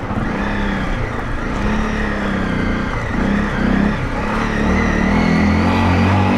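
Honda CRF250L Rally's single-cylinder engine running as the motorcycle is ridden, its revs rising and falling a few times in the middle before it settles into a steadier, louder pull near the end.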